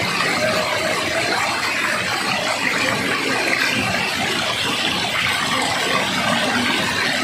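Steady rush of flowing water, an even continuous noise with no breaks.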